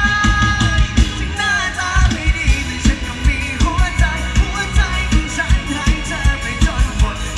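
Live mor lam band music: a fast, steady drum beat under a wavering, ornamented melody line.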